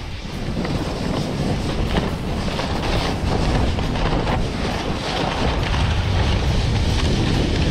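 Wind buffeting the microphone during a fast splitboard descent, with the board hissing and scraping over the snow through the turns.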